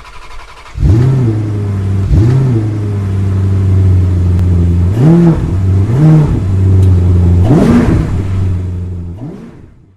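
Engine idling with a steady low drone, blipped up and back down in pitch five times, then a last rise as the sound fades out.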